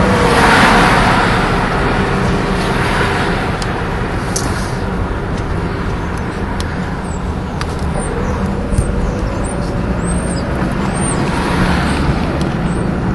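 Road traffic: vehicle engines and tyres going by with a steady low rumble. Vehicles pass closer about a second in and again near the end.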